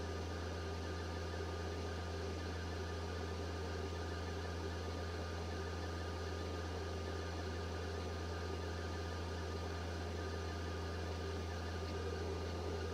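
FLSun S1 Pro 3D printer running near the end of an ABS print: a steady fan hum with a low drone and a few faint constant tones, unchanging throughout.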